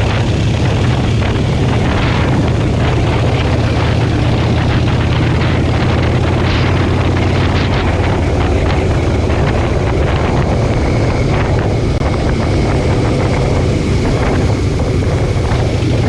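Motorcycle engine running at a steady pace, heard on board while riding, with wind rushing over the microphone.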